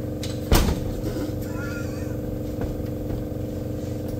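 A single loud, sharp knock about half a second in, with a short ring after it and a couple of fainter clicks later, over a steady low hum: hand work on parts during a clutch and transmission job.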